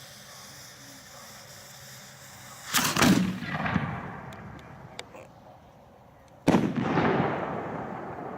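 Aerial firework shell fired from a mortar tube: a steady hiss of the burning fuse, then a loud boom about three seconds in as the lift charge launches it, and a second boom nearly four seconds later as the shell bursts overhead, echoing away.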